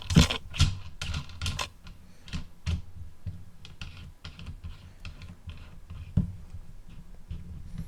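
Irregular clicks and knocks of the monopod and its spreader base being handled and fitted together. They come thick in the first second or two and thin out after that, with one sharper knock about six seconds in.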